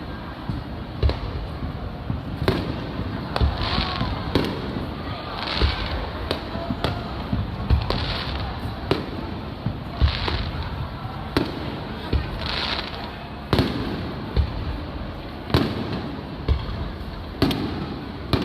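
Aerial fireworks bursting in a steady series of sharp booms, about one every second or two, with short hissing bursts between some of them.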